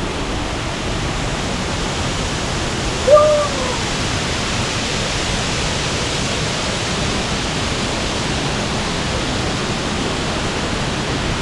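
Sera Ella waterfall rushing, a steady even wash of falling water. About three seconds in, a single short call falling in pitch cuts through.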